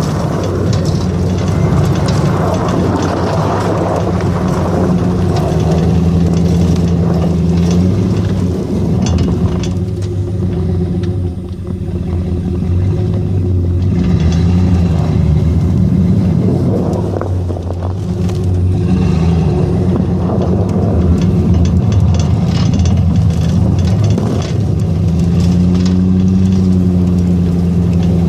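Vehicle engine running steadily under load, its pitch dipping and rising several times as the revs change.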